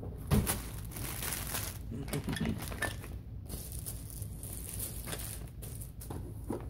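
Clear plastic packaging bags crinkling and rustling as bagged accessories are handled and set down, with a soft knock about a third of a second in.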